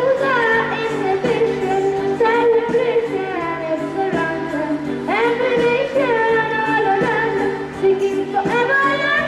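A song is sung to instrumental accompaniment: a gliding, ornamented vocal melody runs over low, steadily held notes.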